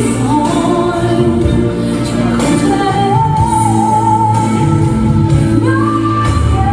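A woman singing a song with instrumental accompaniment, holding long sung notes that step up in pitch about a second in and again near the end.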